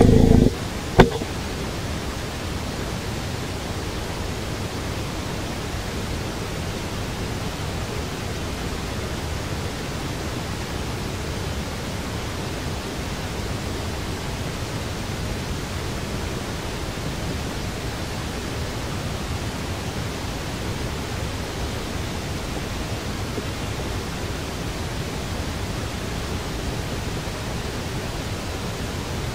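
Steady, even rushing noise with no distinct events, with a brief loud low burst at the very start and a sharp click about a second in.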